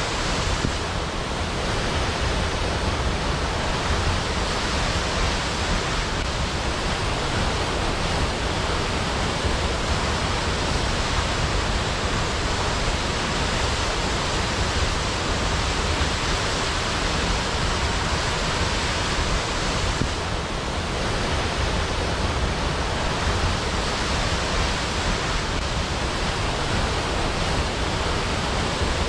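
Waterfall: falling water making a steady, even rush with no pauses.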